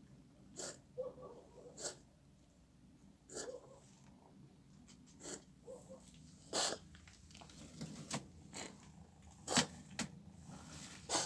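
A pet cat sneezing and coughing over and over, short sharp bursts every second or two, some followed by softer snuffling. The owner wonders whether something is caught in its throat.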